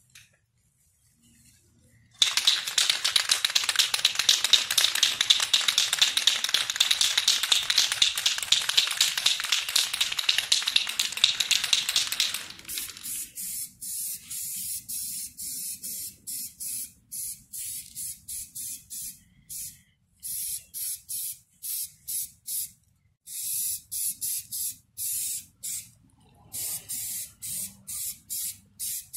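Aerosol spray paint can spraying onto canvas: a loud hiss held for about ten seconds, then a run of quick short spurts, two or three a second, with brief pauses between runs.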